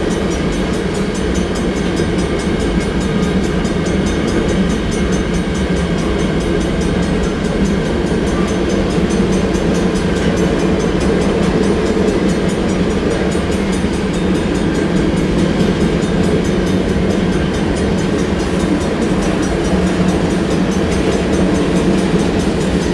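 Empty covered hopper cars of a long freight train rolling past at close range: a steady, continuous rumble of steel wheels on the rails.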